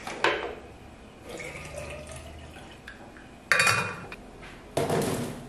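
Water poured into a bottle, its pitch rising slowly as it fills. A sharp click comes at the start, and two louder bursts of handling noise come about three and a half and five seconds in.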